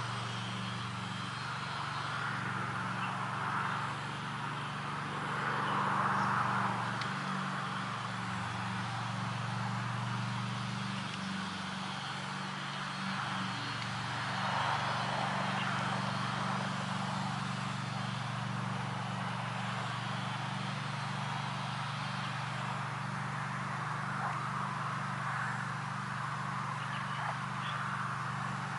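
Outdoor pond ambience: a steady low drone, like a distant engine, under a soft hiss that swells and fades every few seconds, as wind does.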